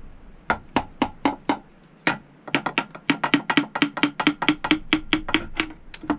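Mallet striking a Land Rover R380 gearbox to knock a part loose: five evenly spaced blows, a short pause, then a faster, steady run of blows lasting about four seconds.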